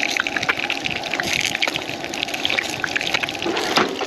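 Crappie fillets frying in hot oil in a skillet: a steady sizzle full of fast crackling pops. Near the end comes a single knock as the pan is shifted on the camp stove's grate.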